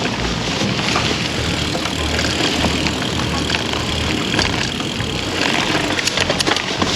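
Mountain bike rolling along dirt singletrack: steady tyre and wind noise, with scattered clicks and rattles from the bike, several of them close together near the end.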